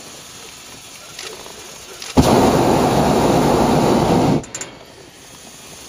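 Hot-air balloon's propane burner firing one blast of about two seconds, a loud even rush that starts and cuts off abruptly.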